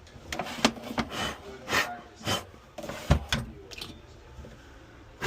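A string of irregular knocks, clicks and clatters, about a dozen sharp strokes of varying loudness with brief rubbing between them.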